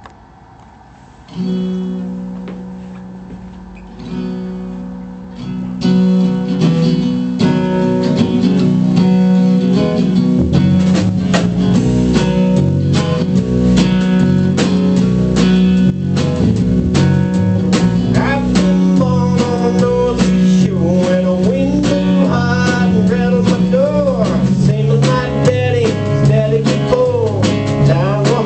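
Guitar-led instrumental music. It opens with two held chords that ring and fade, then a full band with a steady beat comes in about six seconds in, and a lead melody enters about halfway through.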